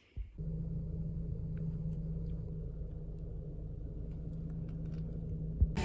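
A steady low mechanical hum and rumble with one constant low tone, starting suddenly just after the beginning and running evenly, with a single thump near the end.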